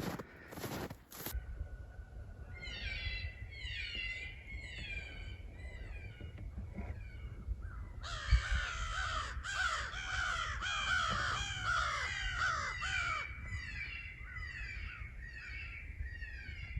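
A chorus of coyote yips and howls: many overlapping falling cries over a steady high held note, growing louder about eight seconds in.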